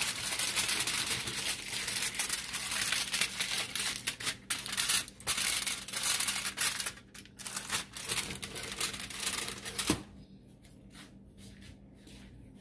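Aluminium foil crinkling and crackling as it is folded and pressed down around oval flan molds, a dense rustle that stops about ten seconds in.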